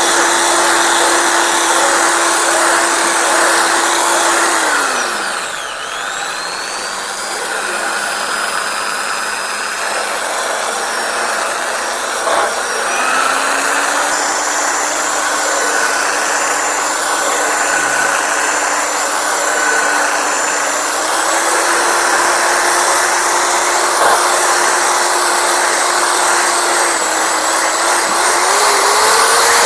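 Electric drill running in reverse, spinning a wire through the clogged holes of a motorcycle fuel pump to clear them. Its steady whine runs down and stops about five seconds in, then starts again at a lower speed and picks up in steps.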